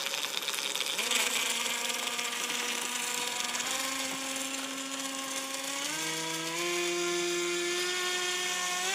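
The RC airboat's small brushless motor (A2212 2200KV) driving its plastic air propeller, giving a steady high whine. The pitch steps up about four seconds in, again about six seconds in and once more near the end as the throttle is opened further.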